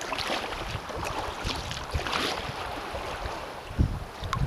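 Water splashing and sloshing against a kayak riding choppy swells, with paddle splashes and wind buffeting the action camera's microphone; a couple of low thumps near the end.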